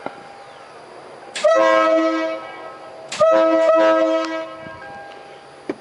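Five-bugle air-powered train horn under a pickup truck sounding two blasts. Each blast is a chord of several steady notes that starts sharply, holds about a second and tails off, the second coming just under two seconds after the first. Obviously loud enough.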